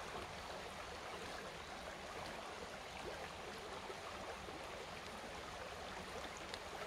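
Shallow, rocky woodland brook flowing over stones and boulders, a steady, even rushing and babbling.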